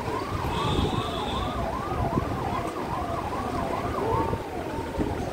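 Electronic vehicle siren sounding a rapid yelp, about three rises and falls a second, settling into a steadier tone near the end, over low engine and street noise.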